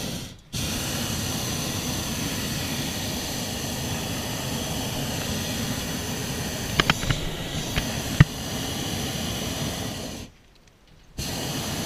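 Hot air balloon's twin propane burner firing in blasts. A brief burst comes right at the start, then a long burn of about ten seconds cuts off, and another blast begins about a second later. A few sharp clicks sound about seven to eight seconds in.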